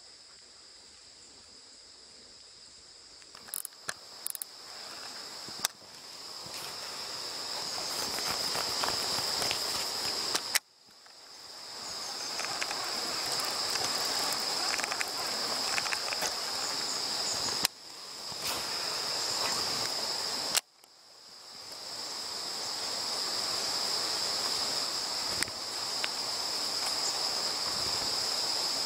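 A steady high-pitched insect chorus, faint at first and then growing louder. It cuts out suddenly twice and swells back in each time. A few sharp clicks come in the first few seconds.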